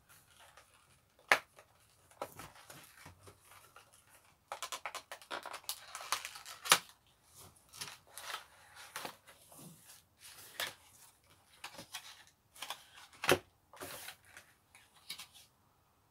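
Handling noise of a small paperboard box being opened and unpacked: irregular rustling, scraping and clicks of cardboard and a plastic bottle tray, with a few sharper clicks standing out.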